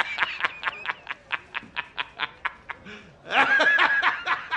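A man laughing hard: quick, even 'ha-ha-ha' pulses about five a second, breaking into a louder, longer high-pitched cackle a little past three seconds in.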